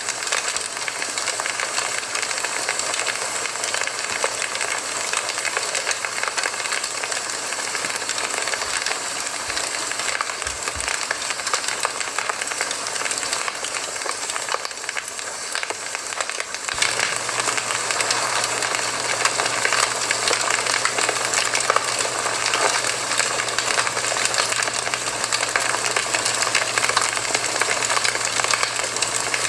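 Campfire burning, a dense steady crackling and hissing with many small pops; it gets a little louder about two-thirds of the way through.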